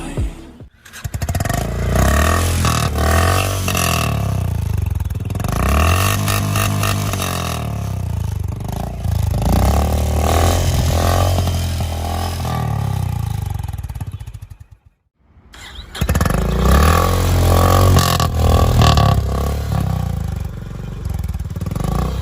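Honda CB350 motorcycle's single-cylinder engine running through its stock exhaust, idling and being revved up and down. About fifteen seconds in the sound drops out for about a second, then the engine note comes back.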